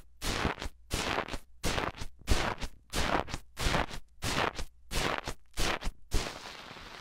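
Bubbly foam slime crackling and popping as a small metal mini microphone is poked into it at close range, about two crackly pokes a second. Near the end there is one longer crackle that fades out.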